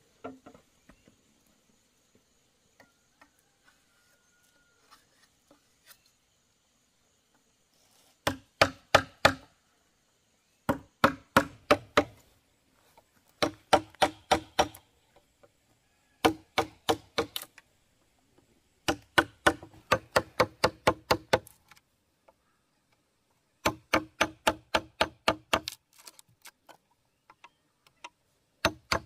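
A blade chopping on a wooden board in quick runs of sharp strikes, about five a second. After a quiet start there are six runs of one to two seconds each, with short pauses between.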